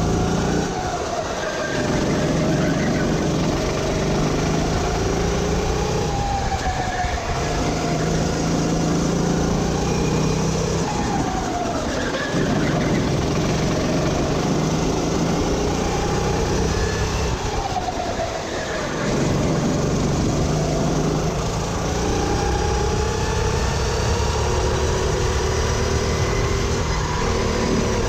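Four-stroke rental kart engine heard from on board at racing pace. Its note climbs as the kart accelerates and falls away as it slows for corners, several times over, above steady wind and road rumble.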